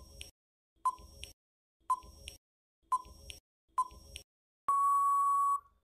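Quiz countdown-timer sound effect: four short electronic pings about a second apart, then a longer steady beep near the end that marks time running out.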